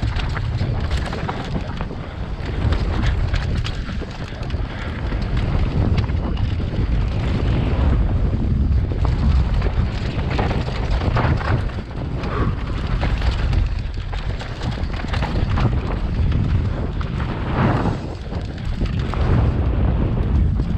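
Wind buffeting a helmet-mounted camera's microphone as a mountain bike descends a dirt singletrack at speed, with tyre noise on the dirt and many short knocks and rattles from the bike over roots and rocks.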